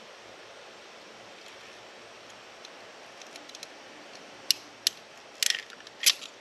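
Hand crimping tool working a wire terminal: a few light ticks, then four sharp metallic clicks in the last two seconds, one of them a quick rattle.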